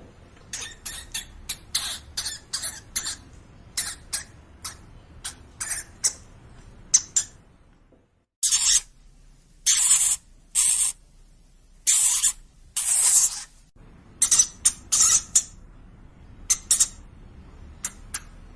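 Hamster squeaking in quick, short, high-pitched squeaks. After a brief break about eight seconds in, five longer hissing bursts follow, each about half a second, and then the short squeaks return.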